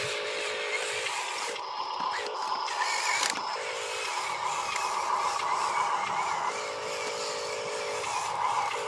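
Radio-controlled dump truck's electric drive motor and gearbox whining as it drives over dirt under a load of soil. The whine switches back and forth between a lower and a higher pitch every second or two as the throttle changes.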